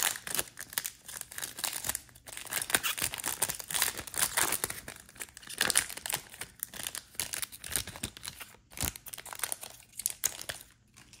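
Wrapper of a 2022 Topps Stadium Club Chrome trading card pack being torn open and crinkled: dense crackling that stops shortly before the end.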